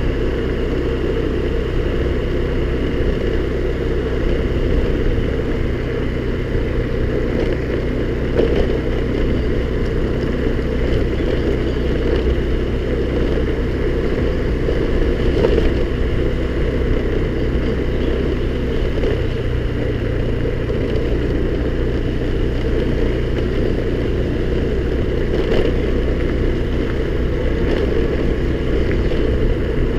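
Honda scooter's small engine running steadily while riding, with now and then a faint knock.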